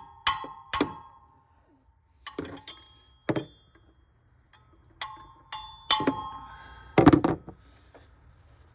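A small hammer tapping a clutch fan wrench to break the fan clutch loose from the water pump shaft. The sharp metallic clinks ring briefly: two come in the first second, then more in scattered groups, and the heaviest comes about seven seconds in.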